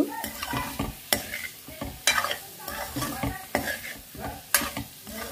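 Metal spoon stirring and scraping minced buffalo meat with peas and carrots around a hammered metal kadai, with irregular scrapes and knocks against the pan over a low frying sizzle.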